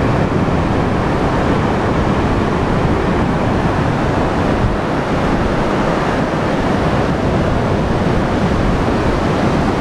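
Steady noise of surf breaking and washing up the beach, mixed with wind buffeting the microphone.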